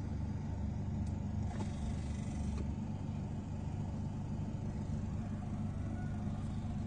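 Car air-conditioning blower fan running with a steady hum and an abnormal noise, which the owner puts down to dirt built up in the fan.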